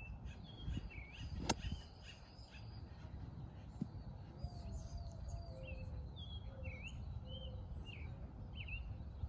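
Small birds chirping again and again in short calls that sweep up and down, over a low rumble, with one sharp click about one and a half seconds in.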